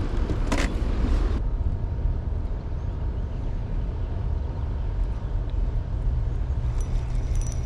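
Steady low rumble of wind and moving water on an open boat, with a single knock about half a second in. Faint light clicks near the end come from the spinning reel being handled.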